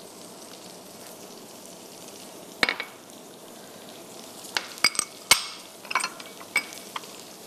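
Sliced onions and garlic sizzling steadily in hot oil in a pan. Several sharp clinks of utensils against glass bowls break in: one about two and a half seconds in, and a cluster in the second half.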